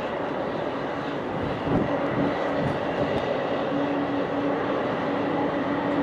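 Boeing 747-400 freighter touching down and rolling out on the runway, heard from a distance as a steady jet rush, with a low rumble swelling and the noise growing louder about two seconds in.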